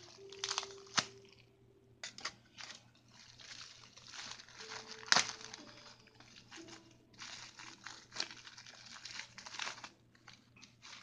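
Clear plastic wrapping crinkled by hand as it is pulled open, in several bursts of rustling with a sharp crackle about five seconds in.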